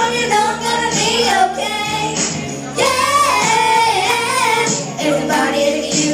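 Two young girls singing a pop song together into microphones over a karaoke backing track, their voices carrying the melody with a long held note in the middle.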